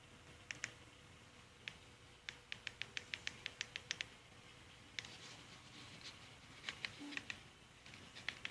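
Runs of short, sharp clicks, faint overall. A quick burst of about eight comes around two to four seconds in, at roughly five a second, with scattered clicks before and after.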